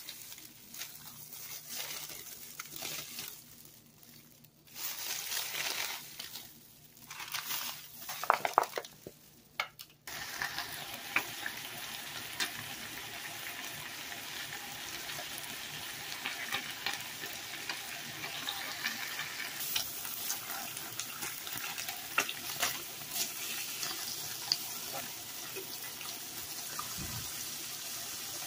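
Plastic bag and wax paper crinkling in uneven bursts as raw hamburger patties are handled. About ten seconds in it cuts to ground beef patties sizzling in their own pooled fat on a griddle: a steady dense hiss with frequent sharp pops.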